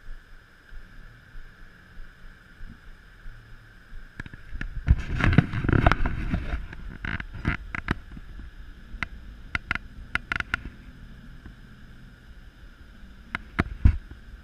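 Knocks and clatter on an aluminum fishing boat, scattered through the second half, over a steady faint tone. A louder rush of noise comes about five seconds in and lasts a couple of seconds.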